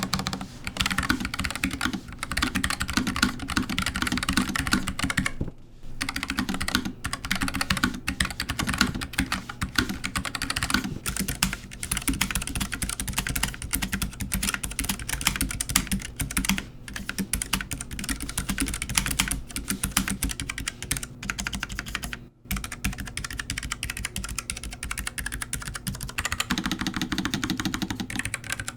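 Fast typing on a low-profile mechanical keyboard: a dense, continuous run of key clacks, broken by brief pauses about six seconds in and again near twenty-two seconds.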